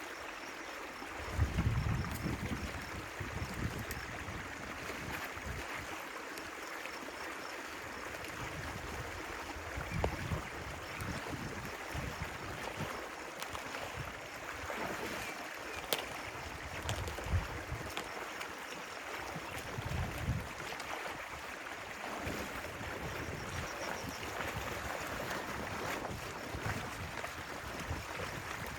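Stream water flowing steadily, with several brief low thumps, the loudest about a second and a half in.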